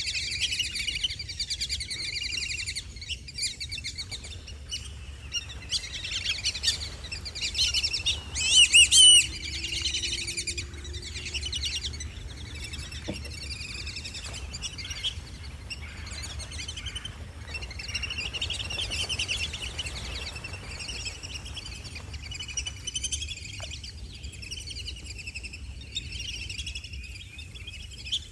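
A flock of whistling ducks calling continuously: many high whistles overlap, with a loud cluster of rising whistles about nine seconds in.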